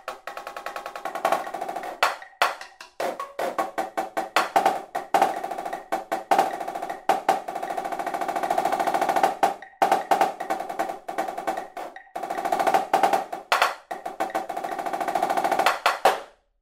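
Marching snare drum playing a rudimental etude at 154 beats per minute: fast accented strokes, diddles and rolls with swells in volume. The playing cuts off abruptly just before the end.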